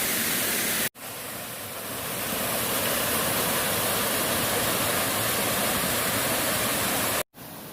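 Rushing water of a clear mountain stream tumbling over rocks, a steady rush. It is broken twice by brief dropouts, about a second in and near the end, and each time comes back quieter and swells up.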